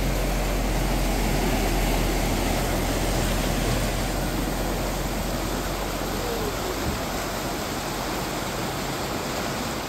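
Fast-flowing floodwater rushing across a ford, a steady wash of noise, as a van drives slowly through with its engine running and its wheels churning the water. The rush eases slightly after the first few seconds.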